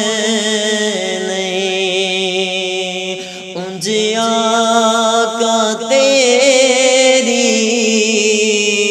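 A male naat reciter singing a Punjabi devotional kalam unaccompanied, drawing out long, wavering ornamented notes, with a short break for breath about three seconds in.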